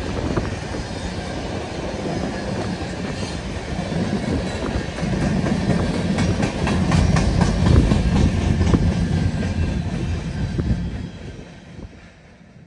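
Freight cars of a Canadian National manifest train rolling past on the rails: a steady rumble of steel wheels, with rapid clicks as the wheels pass over the rail joints. It is loudest in the middle and fades out near the end.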